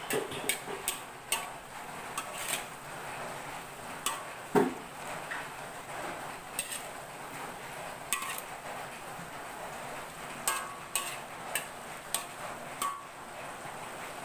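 A metal spatula tapping and scraping against an aluminium wok while stir-frying vegetables: irregular sharp clinks, some ringing briefly, with a louder knock about four and a half seconds in, over a steady hiss.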